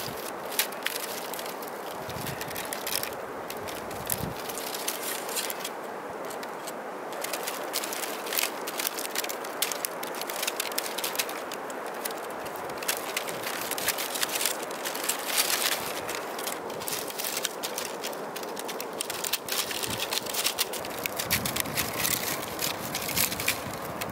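Split bamboo strips crackling and clicking as they are worked into a woven basket, in quick irregular snaps, over a steady rushing background.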